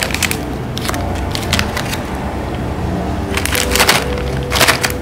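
Plastic candy wrappers crinkling and crackling as they are opened, in several short bursts, loudest near the end, over steady background music.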